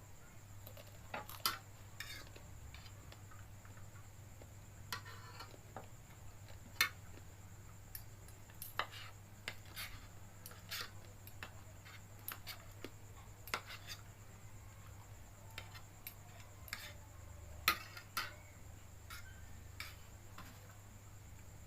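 Cutlery clinking and scraping against a plate or bowl while eating fried noodles, with irregular sharp clicks about once or twice a second.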